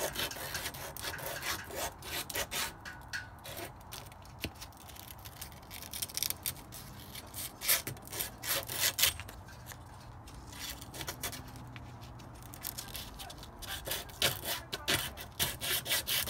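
Sandpaper scrubbing back and forth on the end of a copper water pipe, in runs of quick rasping strokes with a lull in the middle. The pipe is being cleaned bright so the solder joint will hold and not leak.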